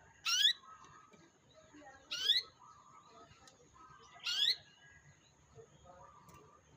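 Canary calling: three loud, short rising chirps about two seconds apart, with fainter twittering between them.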